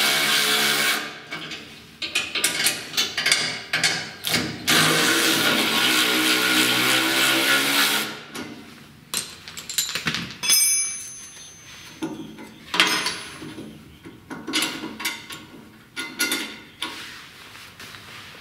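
VonHaus cordless ratchet whirring on the bolts of a jackshaft pillow-block bearing, slackening the bandsaw's drive-belt tension. It runs briefly at the start, then in short bursts, then in one longer run of several seconds whose pitch rises and falls. After that come scattered clicks and knocks of metal being handled.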